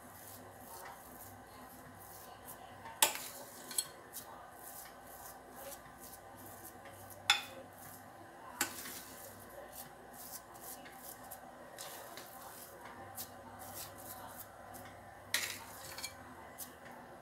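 A metal spoon scooping soft dough out of a glass mixing bowl into a glass baking dish. About six sharp clinks of spoon on glass come a few seconds apart, with soft scraping between.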